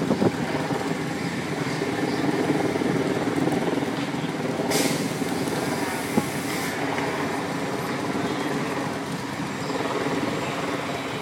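Cars passing close by in a line, a stretch limousine, then an SUV and a sedan, with steady engine and tyre noise. About five seconds in, a hiss lasting about two seconds rises over it.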